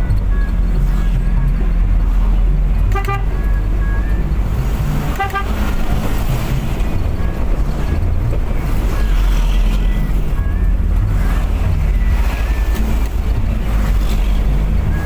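A vehicle driving on the road with a steady low rumble of engine and tyres. Two short horn toots sound, about three and five seconds in.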